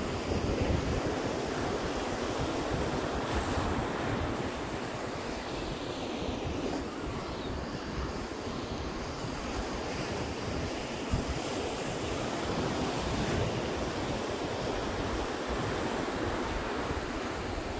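Ocean surf breaking and washing up a sandy beach, with wind buffeting the microphone in a low rumble. There is one brief knock about two-thirds of the way through.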